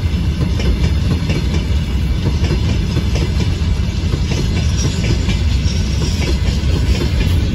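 Open freight wagons of a long train rolling past close by: a steady, heavy rumble of steel wheels on the rails with constant rattling clicks.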